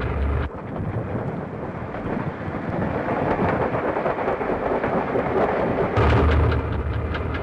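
Rumbling noise of a diesel-electric locomotive's train rolling on the rails, building up as it gathers speed. About six seconds in it gives way to a steadier low engine hum, as heard inside the locomotive cab.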